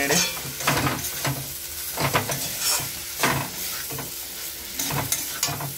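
Metal spatula scraping and stirring a thick, dry pulse-and-masala mix around a metal kadai, in strokes about every half second to second, over a light sizzle of frying.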